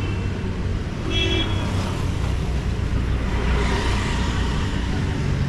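City street traffic: vehicle engines running steadily, with a short horn beep about a second in and a vehicle passing close near the middle.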